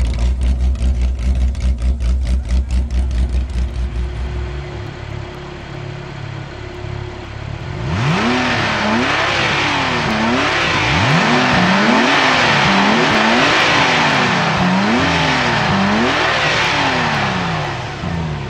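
Car engine pulsing unevenly at low revs, then from about eight seconds in revved repeatedly, its pitch climbing and dropping back roughly once a second.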